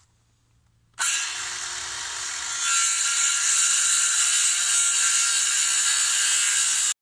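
Handheld electric circular saw cutting through a thick pressure-treated wooden post. The saw starts about a second in, gets louder as the blade bites deeper into the wood, and cuts off abruptly near the end.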